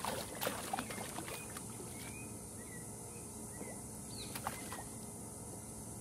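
A traíra (trahira) thrashing at the water's surface on a surface lure, throwing several quick splashes in the first second and a half and a couple more about four and a half seconds in. Faint bird chirps between the splashes.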